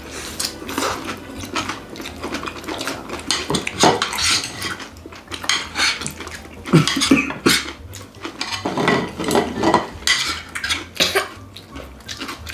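Chopsticks clicking and scraping against ceramic plates and bowls at a family meal, with close chewing and eating noises in between.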